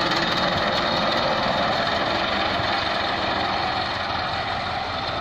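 IMT 577 tractor's diesel engine running under load as it drags a rear scraper blade through a heap of dung, getting a little fainter towards the end as the tractor moves away.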